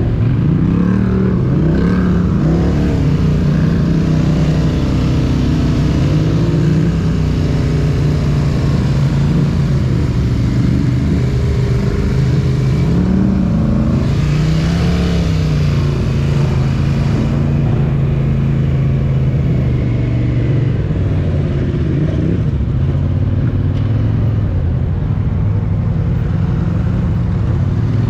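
Polaris side-by-side's engine running under way on a dirt trail, its pitch rising and falling repeatedly with the throttle.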